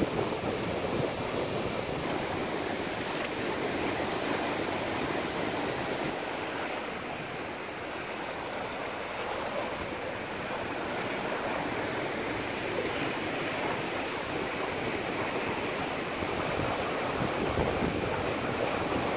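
Sea surf washing and breaking against a rocky shore, a steady rush of waves.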